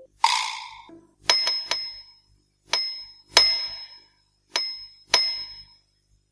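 A small metal bell dinging about seven times in short groups, each strike ringing high and dying away quickly, after a brief noisy sound at the start.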